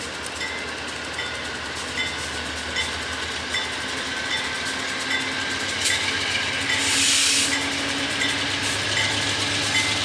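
Locomotive bell ringing steadily, about two strokes a second, over the low hum of a train's engine. A short burst of air hiss comes about seven seconds in.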